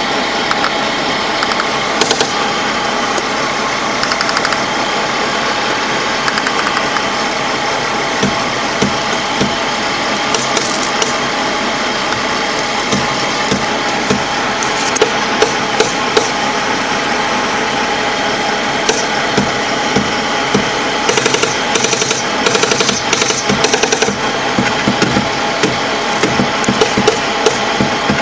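Heavy diesel engine of a LAV III armoured vehicle running steadily, heard from inside the hull. Sharp knocks and rattles come more often in the second half.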